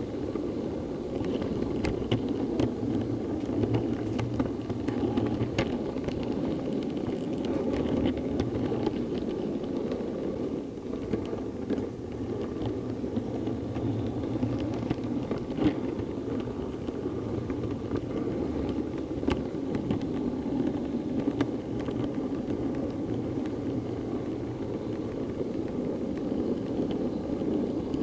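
Model railway locomotive, a Class 08 diesel shunter, running along the track: a steady whirring rumble from its motor and wheels, with scattered light clicks over rail joints and pointwork.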